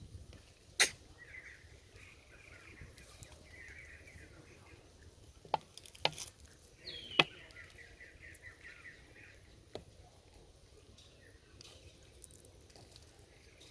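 Faint outdoor ambience with soft, repeated chirping and a handful of sharp clicks or taps spread through it.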